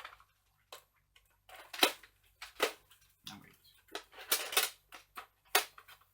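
Hard plastic clicks and clacks of dart magazines being pushed into and handled in a toy foam-dart blaster's magazine well: several separate sharp knocks, a cluster of them about two-thirds of the way in.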